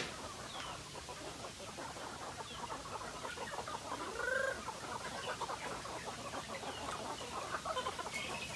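Flock of Philippine native chickens clucking busily as they crowd in to be fed, with one louder, longer call about four seconds in.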